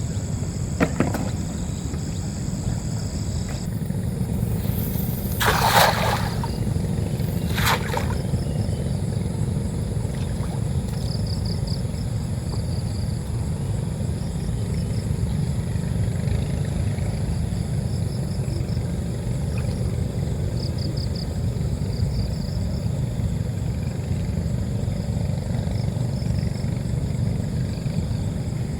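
Wind buffeting the microphone: a steady low rumble. Two brief rushing noises come about six and eight seconds in, and faint high chirping comes in short trills.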